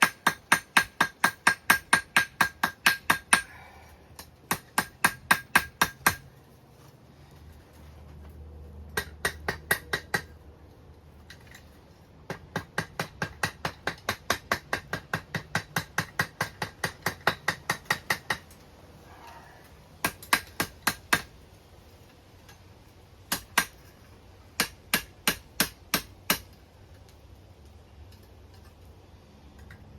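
Hand hammer striking a hot chain link on an anvil in runs of light, quick blows, about three to four a second, with pauses between runs, to set a forge weld. The first run has a ringing note from the steel.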